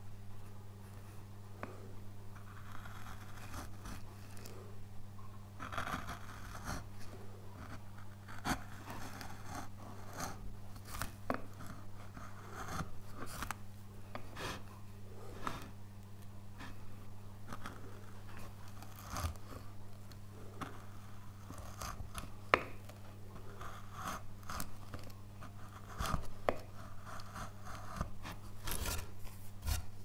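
Carving chisel pushed by hand through a wooden relief panel: a steady run of short crisp cuts and scrapes, with one sharper click about three-quarters of the way through. A steady low hum lies underneath.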